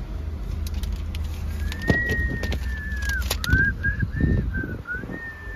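A high, thin whistle over a low steady engine hum. It comes as one long held note, then a quick run of short rising-and-falling notes, then another long held note, with a few soft knocks between.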